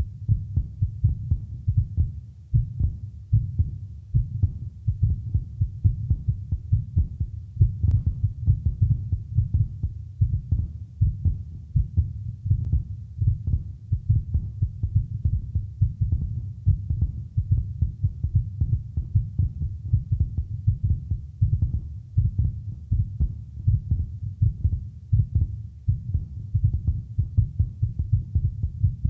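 A low, irregular throbbing pulse, several beats a second, in a live contemporary vocal-ensemble piece. It sounds like a heartbeat, with one sharp click about eight seconds in.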